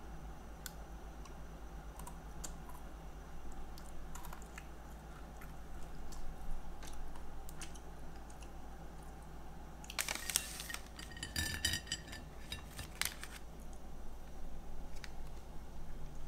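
Small crisp crunches of a chocolate-coated Pocky biscuit stick being bitten and chewed. About ten seconds in, a plastic snack bag crinkles for about three seconds.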